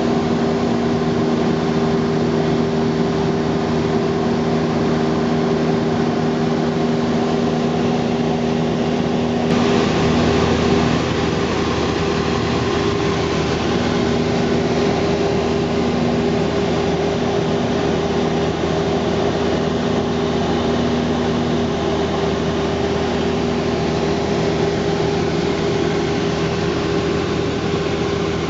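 Piston engine and propeller of a single-engine high-wing light aircraft droning steadily in flight, heard inside the cabin with rushing air noise. About ten seconds in the rushing noise suddenly gets louder.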